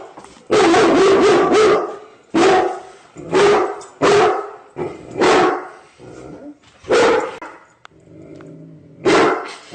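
A dog barking repeatedly: about seven loud barks at uneven intervals, the first few run together. A quieter drawn-out sound comes between the barks near the end.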